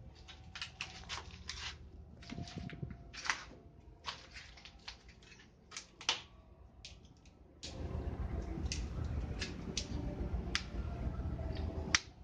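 Scattered light clicks and knocks from someone moving about and handling the camera inside a steel hull. About eight seconds in, a steady low rumble comes in under them, and there is one sharp knock near the end.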